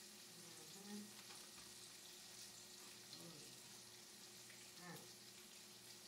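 Near silence: faint steady hiss of room tone, with a few soft, brief sounds about one, three and five seconds in.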